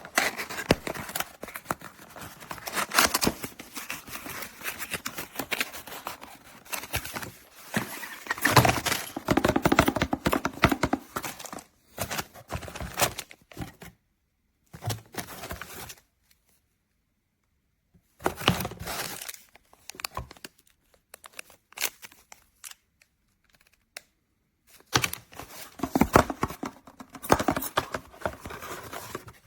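Irregular rustling and crinkling handling noise with sharp little clicks, stopping for a few seconds twice in the middle.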